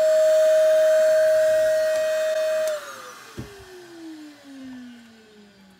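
Vacuum cleaner running with a steady whine, switched off about two and a half seconds in; its motor then winds down in a slowly falling whine.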